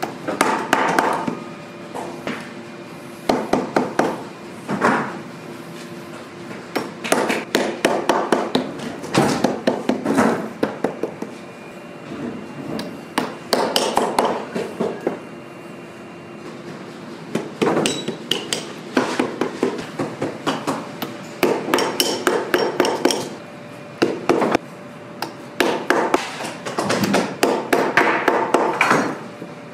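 Bootmaker's lasting hammer tapping tacks through a leather boot upper into the last around the toe, in quick runs of light strikes separated by short pauses.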